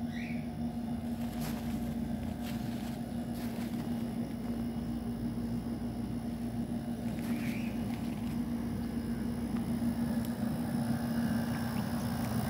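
Pool heat pump heater and its filter pump running with a steady electric hum, growing a little louder near the end.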